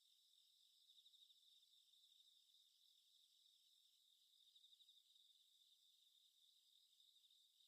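Near silence, with a faint, steady chorus of crickets chirping rapidly, as in a night-time ambience.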